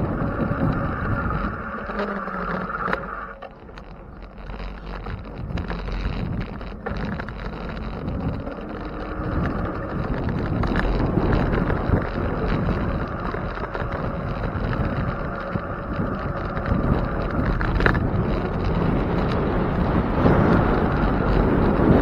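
Wind rushing over the microphone while riding a bicycle: a steady rumbling noise that eases briefly about four seconds in.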